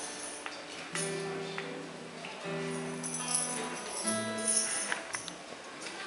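Acoustic guitar strummed three times, about a second and a half apart, each chord left to ring, with a light high jingling over the top.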